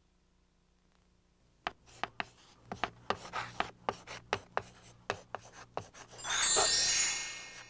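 Chalk writing on a chalkboard: a quick run of sharp taps and scrapes as the letters are written. Near the end a bright shimmering chime swells up and rings out as it fades.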